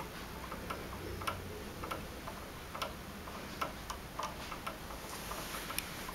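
Buttons on a Generac transfer switch's exercise timer pressed repeatedly with a pen tip: a run of light, irregularly spaced clicks as the exercise start time is stepped forward.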